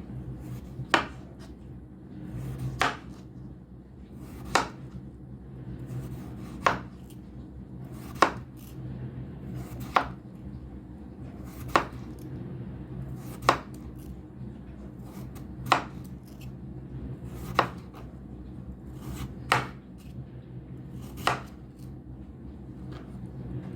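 Kitchen knife cutting through food and striking a cutting board in slow, single cuts: about a dozen sharp taps, one roughly every two seconds, over a steady low hum.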